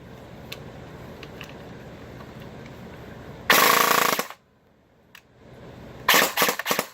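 Electric airsoft gun running on an 11.1 V LiPo firing: a short full-auto burst about three and a half seconds in, then a quick string of separate shots near the end, over a steady low hiss.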